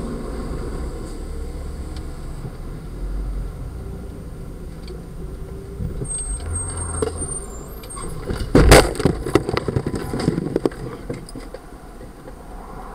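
Minivan cabin with steady engine and road noise, then about nine seconds in a loud crash as a motorcyclist slams into the windshield and shatters it, followed by about two seconds of clattering knocks that die away.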